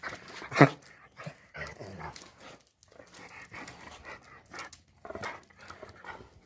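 Dogs panting and whining excitedly, with one short, louder cry about half a second in.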